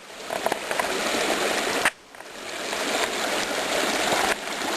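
Small creek waterfall and stream, water rushing and splashing steadily. The sound cuts out suddenly about two seconds in and swells back up over the next second.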